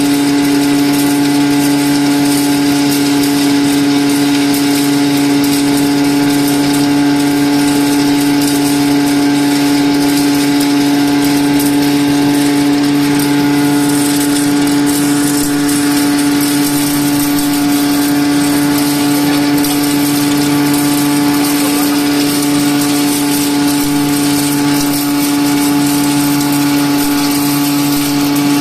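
Soybean grinding mill running steadily while it grinds soybeans fed from its hopper: a loud, even motor hum with one strong tone and a hiss over it.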